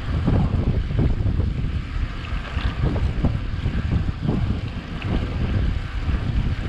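Wind buffeting the microphone of a bicycle-mounted camera while riding, a steady rushing with uneven low gusts.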